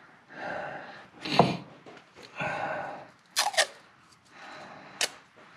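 Tape pulled off a roll with a rasping sound and torn off, with sharp snaps and small clicks from handling it.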